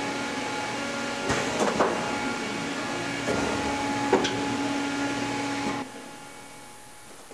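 Hot plate plastic welding machine running with a steady hum, with a few mechanical knocks about one and a half and four seconds in. The hum drops away about six seconds in.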